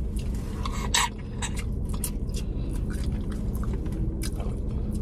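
Someone eating seafood-boil crab: many small sharp cracks, crunches and wet chewing sounds as the shell is picked and the meat eaten, over a steady low hum inside the parked car.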